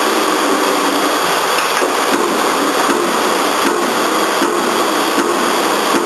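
Single-station mechanical CNC punch press running with a steady loud noise. From about two seconds in it strikes regularly, roughly once every three-quarters of a second, with a short pitched whir between strikes as the CNC feed table steps the steel plate to the next hole.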